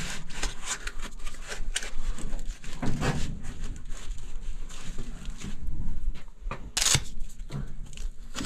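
Hands rubbing and pressing foam insulation tape around a copper refrigerant line and TXV sensing bulb: irregular scuffs and rustles, with one short, sharp rasp about seven seconds in.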